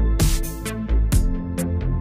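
Background electronic music with a steady beat of drum hits over sustained tones and heavy bass.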